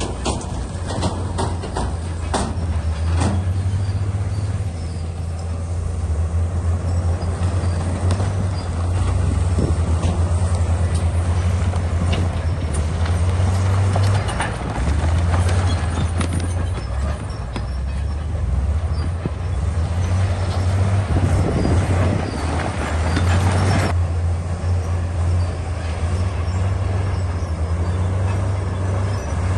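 Bulldozer's diesel engine running steadily under load, with metallic knocks in the first few seconds and grinding scrapes of rock and tracks.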